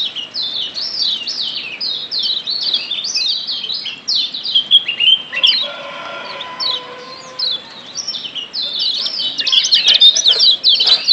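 Lombok yellow white-eye (kecial kuning, a Zosterops) calling in a fast run of sharp, sweeping 'ciak' chirps. The chirps thin out briefly around the middle and come back dense near the end.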